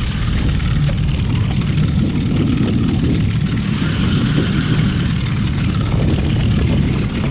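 Small tiller outboard motor running steadily at trolling speed, with wind noise on the microphone.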